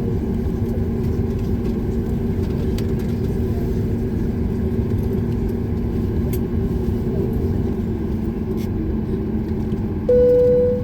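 Steady cabin rumble and hum of a Boeing 737 MAX 8 with its CFM LEAP-1B engines running after landing. Near the end, a loud single-tone cabin chime sounds, announcing the arrival PA call.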